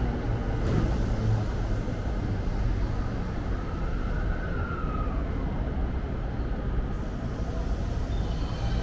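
Electric commuter train rumbling beside the platform, with a faint whine that rises and then falls about four seconds in.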